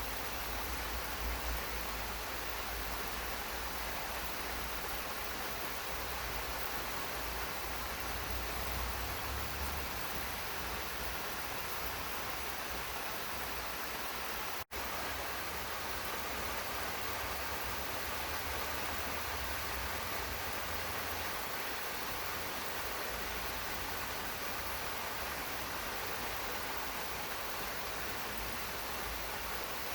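Steady rain falling in a garden, an even hiss with no distinct drops standing out. The sound cuts out for an instant about halfway through.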